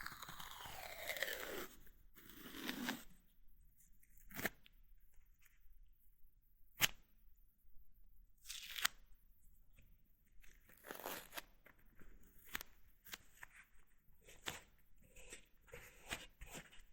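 3M medical tape pulled off its roll: two screeching peels in the first few seconds, falling in pitch, then single sharp rips a couple of seconds apart. Near the end come a run of small scratchy ticks and crinkles as the tape is handled and pressed on.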